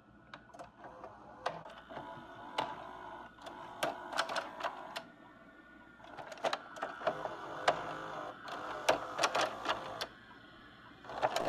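Videocassette recorder loading and starting a VHS tape: a motor whirring steadily under many irregular mechanical clicks and clunks from the tape mechanism.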